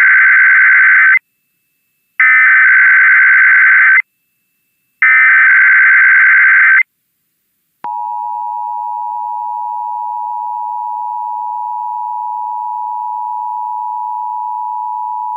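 Emergency Alert System SAME header: three bursts of warbling digital data tones, each under two seconds. About eight seconds in, the steady two-tone EAS attention signal (853 and 960 Hz) begins, opening a required monthly test.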